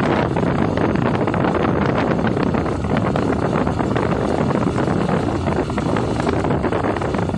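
Steady wind rushing over the microphone of a moving motorcycle, with the motorcycle running underneath.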